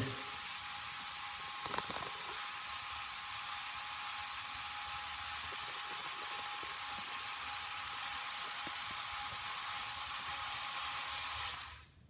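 Small robot's electric drive motors and gear train whirring steadily as it drives across a concrete floor, then cutting off suddenly near the end as it stops at its programmed encoder distance.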